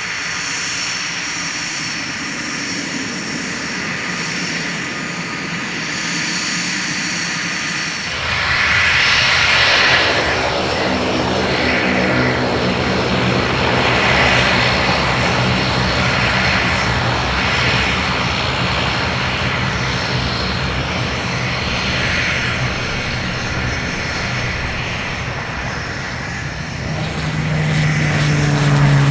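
Pilatus PC-12 NGX single-engine turboprop (Pratt & Whitney PT6) running with a steady turbine whine. About eight seconds in, the power comes up sharply for the takeoff roll into a loud propeller buzz. The sound swells as the aircraft rushes past close by near the end, and its pitch drops as it goes by.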